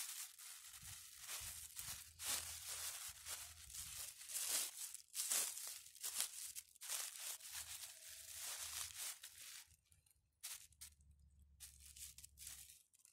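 Plastic freezer bag packed with peat crinkling and rustling as hands squeeze it and tie it shut around a pear branch for air layering. The rustling is dense for most of the time and thins out about ten seconds in.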